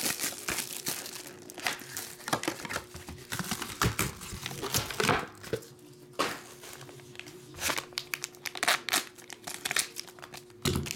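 Plastic shrink wrap and gold foil trading-card packs crinkling and tearing as they are handled and unwrapped: dense, irregular crackles with a short lull a little past halfway.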